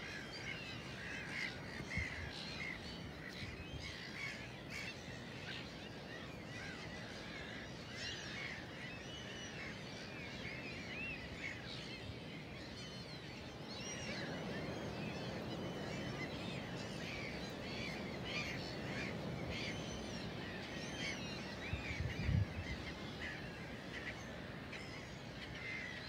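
A large feeding flock of gulls calling all the time, many short overlapping cries, over a steady rushing noise that grows louder about halfway through. A brief low knock near the end.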